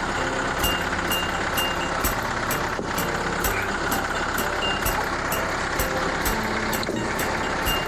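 Portable sawmill running, its engine driving the band blade through a log being cut into cants. The machine noise is steady, with a light high tick repeating about twice a second.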